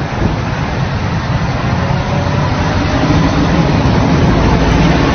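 Road traffic on a rain-wet street: a heavy armoured vehicle and cars passing, a loud, steady low rumble of engines with tyre hiss.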